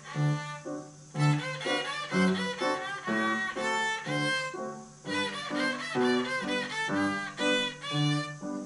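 Violin played with the bow in a brisk run of notes, with short breaks about a second in and about five seconds in.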